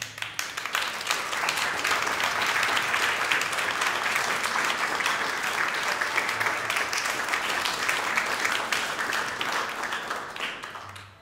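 Concert audience applauding: dense clapping that swells up in the first second, holds steady, and dies away near the end.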